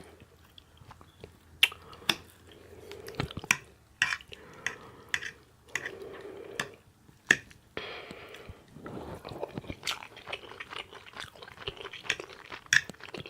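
A person eating with loud open-mouth chewing and wet lip smacks, sharp smacking clicks coming irregularly throughout.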